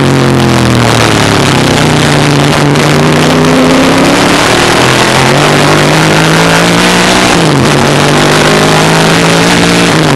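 1963 Ford Falcon Sprint race car's V8 engine at racing speed, heard on board and very loud. Its note dips right at the start, climbs slowly for about seven seconds, drops sharply and climbs back, then dips again near the end.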